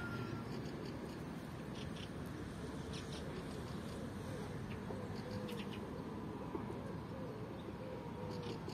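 Small birds chirping in short calls now and then over a steady low rumble.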